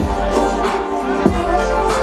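Electronic dance music with a heavy bass line and a steady kick drum.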